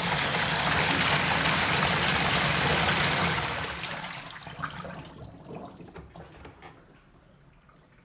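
Water gushing out of an LG washing machine's drain, loud and steady for about three seconds, then dwindling to a trickle with a few drips; the repaired drain is emptying the tub.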